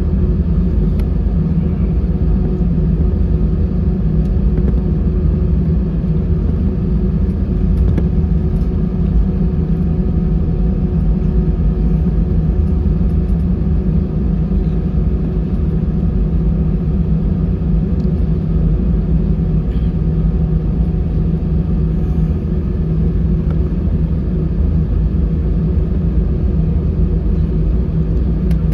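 Airbus A320's CFM56 engines running at low thrust, heard inside the passenger cabin as a steady rumble with a few steady hum tones, while the airliner is on the ground before takeoff.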